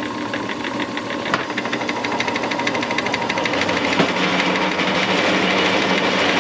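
Drill press running with a cutter held in its Morse taper, cutting into a brake hub to take its concave face down flat, with a fast, even ticking chatter and a sharper click about 1.5 s in and again about 4 s in.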